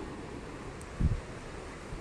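Steady outdoor noise with wind on the microphone, and a brief low thump about a second in.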